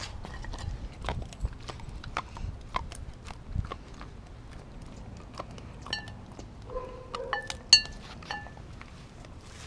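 A dog eating raw meat and bone from a glass bowl at close range: irregular chewing and crunching clicks. Between about six and eight and a half seconds in come a few sharper clinks that ring briefly, the loudest near eight seconds.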